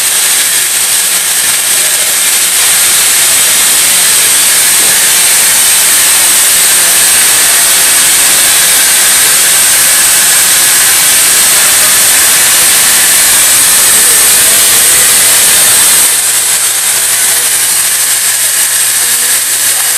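Mori Seiki NT3200 DCG CNC turning-milling center running: a loud, steady hiss with a high whine. About 16 seconds in, the hiss eases and a low hum is left under the whine.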